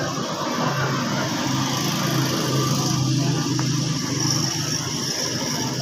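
An engine running steadily, its low hum strongest for a few seconds in the middle.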